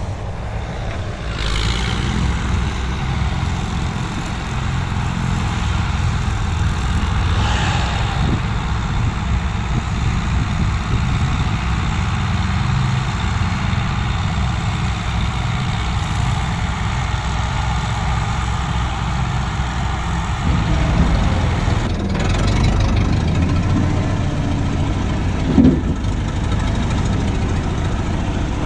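A heavy engine running steadily with a low rumble. Its sound shifts about twenty seconds in, and there is a brief squeal near the end.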